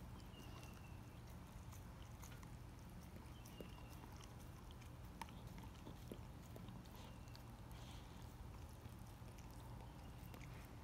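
Dog chewing and licking at a raw whole lake herring: faint, scattered wet clicks of jaws and tongue on fish flesh.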